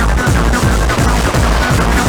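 Techno played loud over a club sound system: a steady pounding kick drum under fast, rattling high percussion and synth tones.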